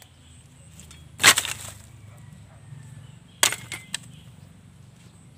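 A bundle of cut wooden stakes thrown down onto the ground, clattering a little over a second in. A second, shorter clatter with a few light clicks follows about three and a half seconds in.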